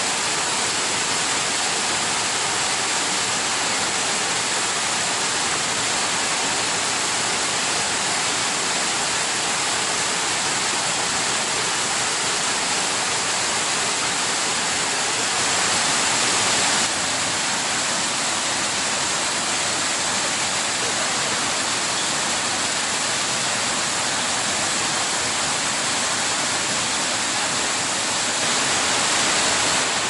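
Jōren Falls, a waterfall plunging into its pool: a steady rush of falling water. It grows briefly a little louder about halfway through and again near the end.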